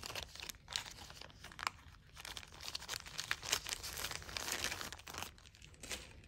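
A small plastic bag crinkling and rustling as it is handled, with a pin being slipped back into it: irregular soft crackles, dying down briefly near the end.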